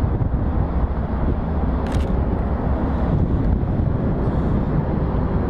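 Steady low rumble of a freight train or locomotives, with one short sharp click about two seconds in.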